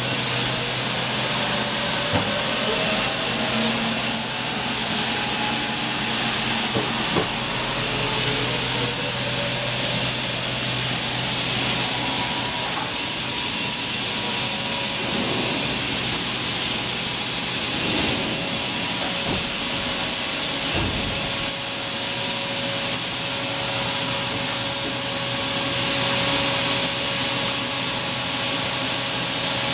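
Steady, loud machine drone with a constant high-pitched whine, from the powered-up CNC horizontal machining center and the shop equipment around it.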